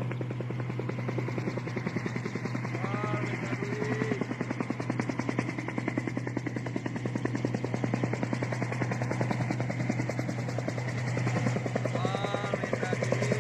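Helicopter circling overhead: a steady, rapid rotor chop over a constant engine drone.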